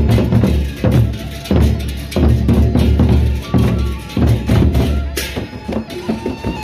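Gendang beleq ensemble playing: the large Sasak gendang beleq drums beat a steady rhythm of heavy strokes, about three every two seconds, with hand cymbals clashing in from about five seconds in.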